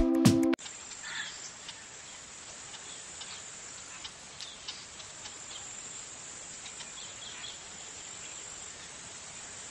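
Background music cuts off about half a second in, leaving a nature ambience of insects: a steady high-pitched trill with scattered short chirps.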